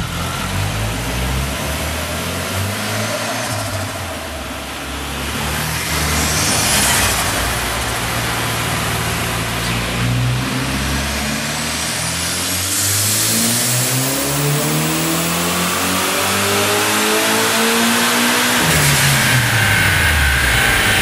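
Turbocharged VW 1.8-litre four-cylinder on a chassis dyno doing a pull under load: the engine note climbs steadily in pitch for several seconds, with a high whistle sweeping up partway through. Near the end the throttle closes and the revs fall away quickly.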